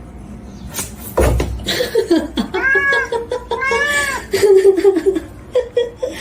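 A cat caterwauling: two long, drawn-out yowls, each rising and then falling in pitch, with shorter cries and scuffling clicks around them. A loud thump comes about a second in, just before the yowls.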